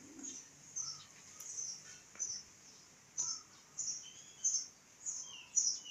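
A bird chirping over and over, short high chirps about twice a second, with a few lower sliding notes in the second half.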